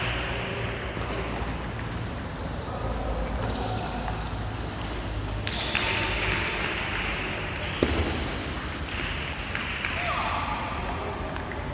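A few sharp clicks of a table tennis ball being struck and bouncing, against a steady hall background of voices and chatter.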